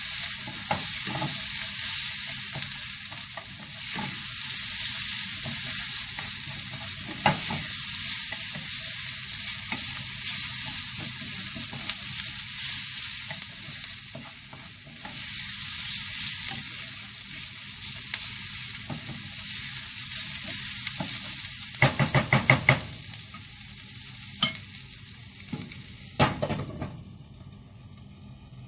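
Kimchi fried rice sizzling in a hot pan as it is stirred, a steady hiss. About two-thirds of the way through comes a quick run of sharp clicks, then a few single clicks, and the sizzle drops off near the end.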